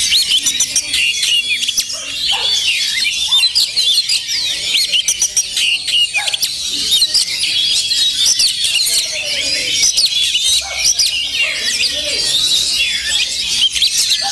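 Oriental magpie-robins singing, many at once: a dense, unbroken jumble of quick, overlapping high whistles and chirps.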